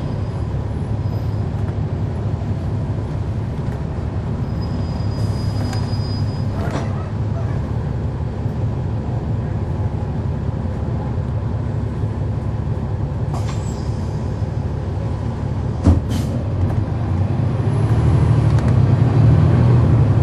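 Cummins ISL9 diesel engine of a 2011 NABI 416.15 transit bus, heard from the rear of the bus while under way, a steady low drone with the odd knock and rattle, the sharpest knock about 16 seconds in. The engine grows louder about 18 seconds in as the bus pulls harder.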